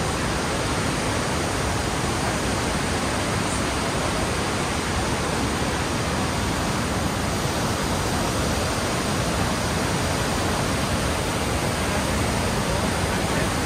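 Montmorency Falls, an 83-metre waterfall, pouring in a steady, unbroken rush of falling water.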